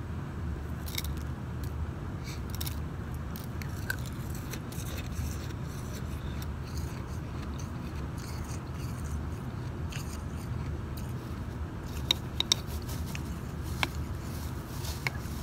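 Crunching bites of shaved ice and a metal spoon scraping and scooping the ice in a glass bowl, heard as scattered short clicks with a few sharper ones around twelve seconds in, over a steady low background hum.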